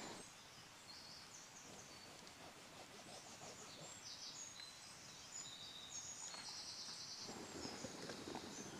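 Faint woodland birdsong: several birds singing short, high chirps and phrases.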